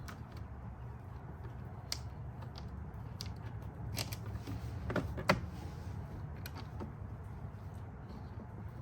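Scattered sharp clicks and taps, the loudest about five seconds in, over a steady low hum.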